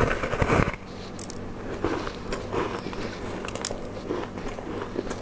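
A bite into a block of frozen ice, with a loud crackling crunch in the first moment. This is followed by quieter chewing of the ice, with scattered small crunches and clicks.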